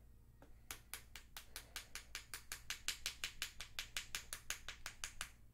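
A makeup brush rubbed quickly back and forth, a fast even run of short scratchy strokes, about six or seven a second, starting under a second in and stopping shortly before the end.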